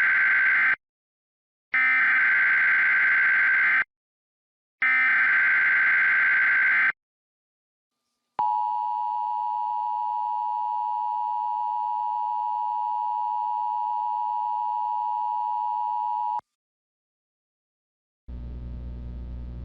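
Emergency Alert System header: three screeching data bursts of about two seconds each, the first already under way, then after a short gap the steady two-tone attention signal held for about eight seconds before it cuts off. These tones announce that an emergency alert message follows. A low hum comes in near the end.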